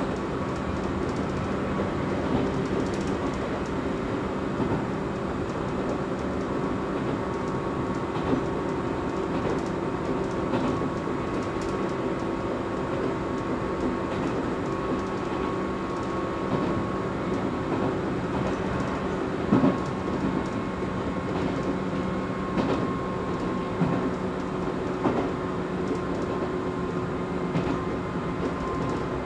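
Izuhakone Railway Sunzu Line electric train running along the track, heard from inside the front of the train: a steady rumble with a constant hum, and a few sharp clacks from the wheels on the track, mostly in the second half.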